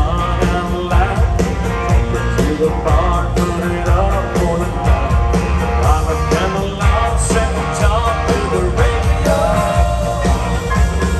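A live country band playing loudly through a stadium sound system, with a male lead voice singing over electric guitars, bass and a steady drum beat, heard from within the crowd.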